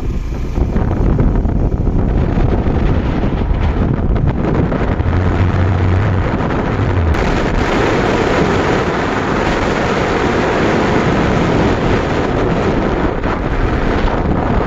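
Heavy wind buffeting a phone microphone on a moving motorcycle, a steady loud rush; its tone changes abruptly about seven seconds in.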